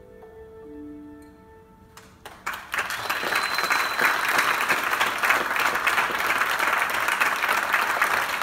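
The last soft notes of the music fade, then about two seconds in an audience starts applauding, the clapping quickly growing loud and holding steady.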